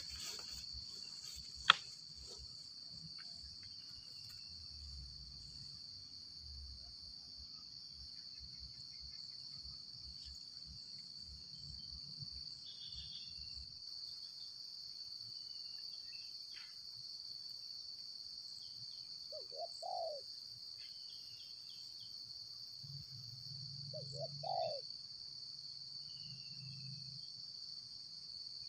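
A steady, high-pitched insect drone, with a spotted dove cooing, short low notes, twice in the second half. A sharp click sounds about two seconds in, and a few faint high bird chirps are scattered through.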